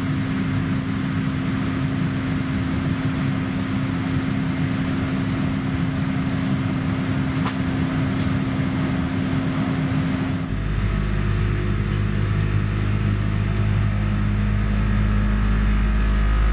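Steady hum and rush of a Boeing 787-9's cabin during pushback, heard from a window seat over the wing. About ten seconds in, the sound switches abruptly to a deeper drone.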